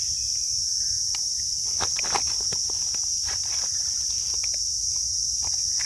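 Steady high-pitched insect chorus, a continuous buzzing drone, with scattered light crackles and rustles of leaf litter underneath.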